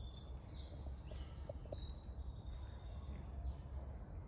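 Several woodland songbirds singing, many short high falling notes overlapping, over a steady low rumble.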